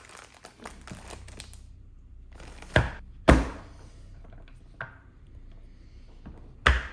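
Tabletop handling of cooking ingredients: faint crinkling of packaging over the first second and a half, then sharp knocks of items set down on a table, two about three seconds in, a lighter one near five seconds and one near the end.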